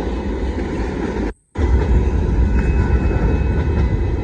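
Union Pacific grain train rolling past at close range, a steady low rumble with the clatter of its cars on the rails. The sound cuts out for a moment about a second and a half in.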